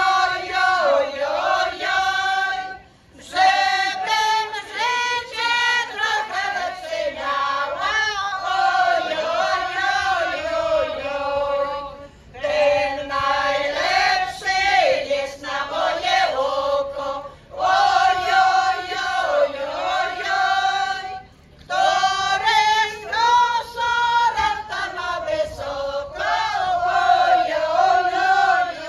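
A women's choir of older singers singing, in long phrases with a few short breaks between them.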